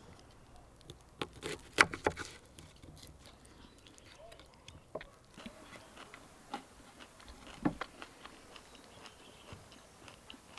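A person eating, with soft chewing and a few sharp clicks, the loudest cluster about two seconds in.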